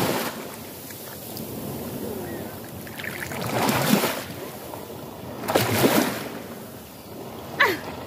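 Small shore waves breaking and washing foaming up the sand, swelling twice, about three and a half and six seconds in.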